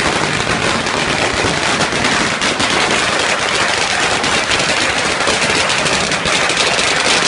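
Firecrackers going off in a rapid, continuous crackle of many sharp bangs with no break.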